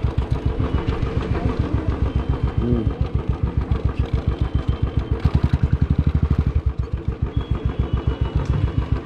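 Royal Enfield single-cylinder motorcycle engine running at low revs while the bike is ridden slowly, an even beat of about eight pulses a second.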